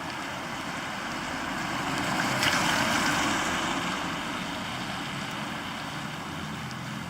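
Heavy rain falling on an SOL survival poncho, heard from underneath: a loud, steady patter in which single drips come through. The noise swells for a second or so about two and a half seconds in.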